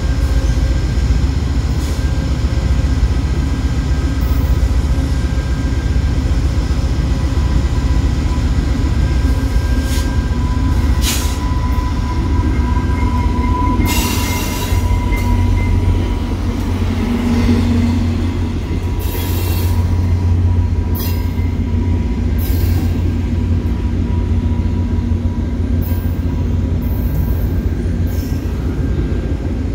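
VIA Rail passenger train passing close by: the deep rumble of its diesel locomotive and the rolling of the cars over the rails, with thin, steady wheel squeal. A few sharp clacks come in the second half as the cars go by.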